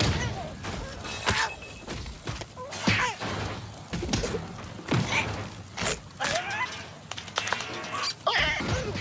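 Cartoon fight-cloud sound effects: a rapid, irregular run of thumps and whacks mixed with squawking cartoon bird voices, over music.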